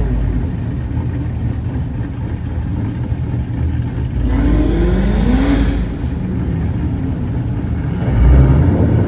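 Car engines running, with one car accelerating hard about four seconds in, its engine note rising over a second or so. A deep, loud rumble swells up near the end.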